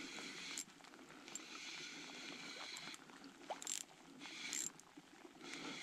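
Light spinning reel, a Fladen Maxximus, being cranked to bring in a hooked trout: a faint mechanical whirring and clicking of the reel's gears, with two short noisy bursts a little past the middle.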